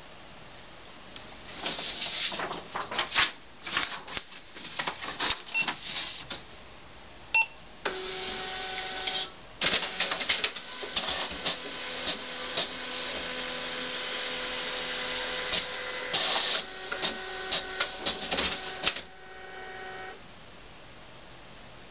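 Desktop printer running through a job: a fast run of clacks and clicks for several seconds, then a steady motor whine with more clicking over it, stopping abruptly about twenty seconds in.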